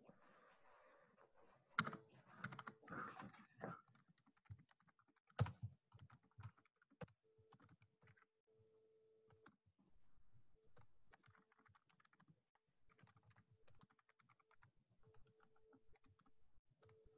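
Faint typing on a computer keyboard: irregular key clicks, with a louder run about two seconds in.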